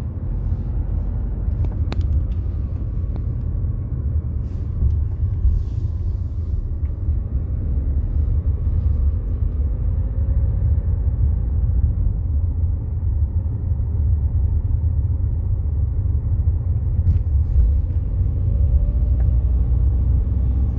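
Steady low rumble inside a moving car's cabin: engine and tyres on the road, with a few light knocks in the first few seconds.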